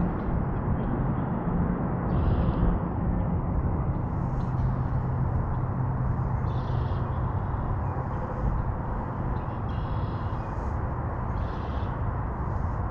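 A steady low outdoor rumble with a hum, with short bird calls breaking in about half a dozen times.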